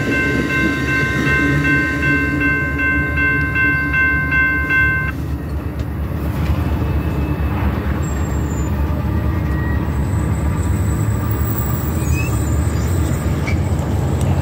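Railroad grade-crossing warning bells ringing steadily, then stopping abruptly about a third of the way in as the crossing clears. Underneath, the continuous low rumble of the Amtrak passenger train rolling away from the crossing.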